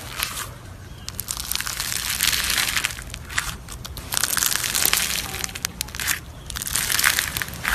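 Slime being squeezed and pressed by hand, making dense crackling, crunching sounds in several bouts separated by short lulls.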